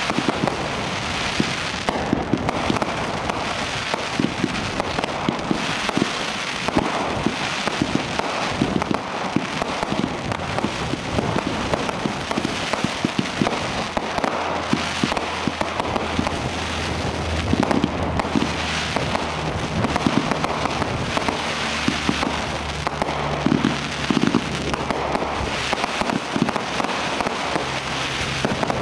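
Professional fireworks display firing continuously: a dense run of shots and crackling star bursts, with many sharp bangs throughout and no break.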